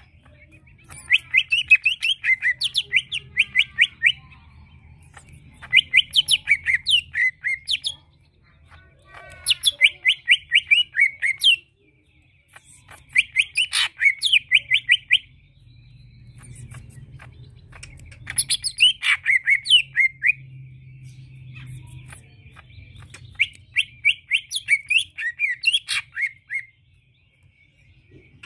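Leafbird (cucak ijo) singing in six phrases of rapid chattering notes, each phrase lasting two to three seconds with short pauses between.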